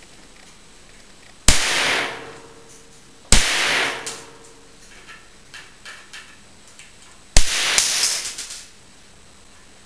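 Three sharp pops, each followed by a short fading hiss: one about a second and a half in, another two seconds later, and a third near the end with a second smaller pop just after it.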